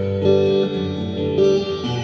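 Guitar played in a slow improvised run, sustained single notes ringing into each other, a new note picked about every half second.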